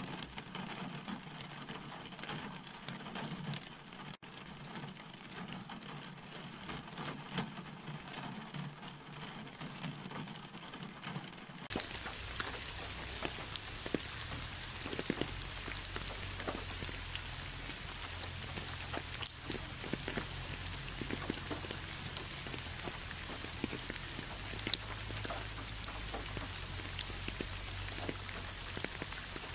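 Steady rain falling, with individual drops ticking. About twelve seconds in it switches abruptly to louder, hissier rain with a low rumble underneath.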